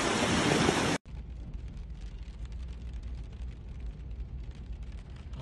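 Loud rush of wind and floodwater on the microphone that cuts off abruptly about a second in. It gives way to the quieter, steady low rumble inside a car's cabin.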